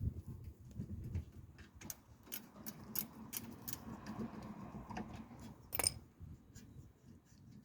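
Irregular light metallic clicks and taps from tools and metal brake parts being handled, with one sharper click about six seconds in.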